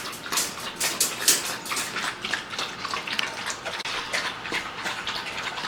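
Dogs lapping water from a bowl: a quick, uneven run of wet laps.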